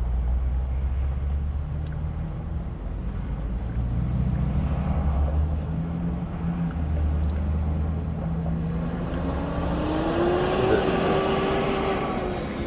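Steady low rumble of a motor vehicle engine. From about nine seconds in, a rising whine and louder road noise swell and ease off, as a vehicle accelerates past.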